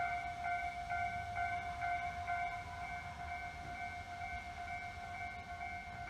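Japanese level-crossing warning bell ringing, a repeating electronic ding about twice a second, warning that a tram is approaching.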